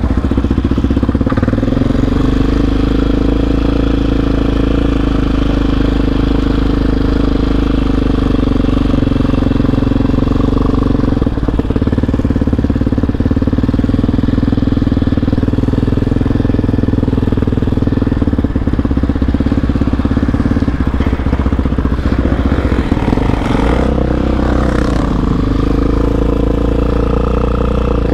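ATV engine running steadily under way, its pitch dropping and picking back up over a few seconds about two thirds of the way through.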